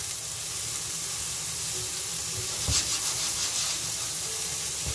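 Vegetables stir-frying over high heat in a nonstick frying pan: a steady sizzling hiss, with a few soft strokes of a silicone spatula about two and a half to three and a half seconds in.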